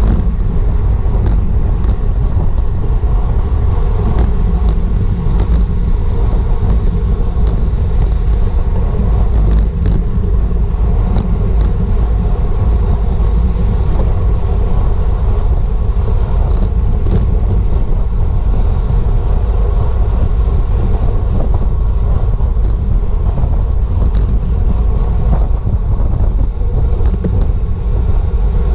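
Steady wind rush and low rumble over a GoPro microphone on a racing bicycle moving at speed, with scattered sharp ticks.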